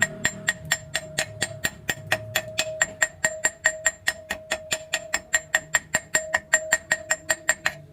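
Background music with a fast, even ticking beat, about six clicks a second over a held tone, stopping just before the end.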